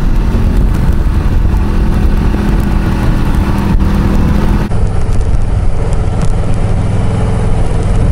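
Harley-Davidson V-twin motorcycle engine running at cruising speed, with wind and road noise. The engine note sits higher in the first half, where the audio is sped up, and drops abruptly to a lower, normal-speed note about four and a half seconds in.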